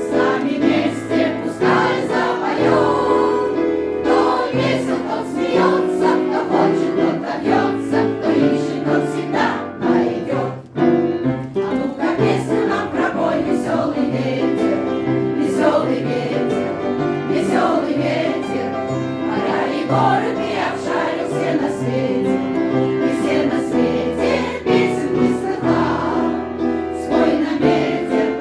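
Veterans' choir singing a song in unison phrases, with instrumental accompaniment holding sustained bass notes and chords beneath.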